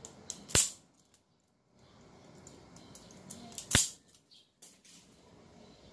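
Two sharp snaps of hand wire-stripping pliers closing on a wire, about three seconds apart, with faint handling of the wires between them.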